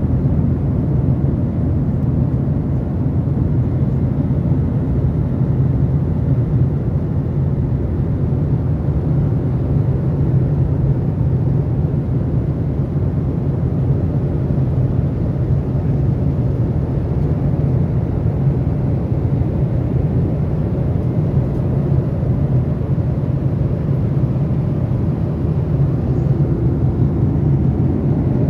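Airliner cabin noise in flight: a steady low rumble of engines and airflow that holds even throughout.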